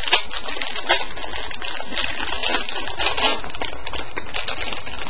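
Clear plastic bag crinkling and rustling as it is pulled and worked open by hand, with sharp snapping clicks scattered through, the loudest about a second in. The bag is heat-sealed and resists opening.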